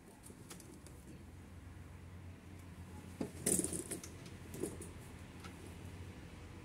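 A few light clicks and a short cluster of small knocks and clatter about three and a half seconds in, over a low steady hum.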